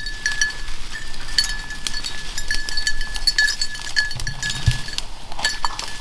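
Bell on a bird dog's collar ringing over and over as the dog moves through dry brush, with brush rustling. The ringing drops out for a moment about five seconds in, then starts again.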